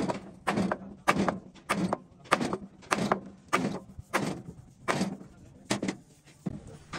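A hand tool worked in regular strokes, about one every 0.6 seconds, each a short rasping burst that trails off.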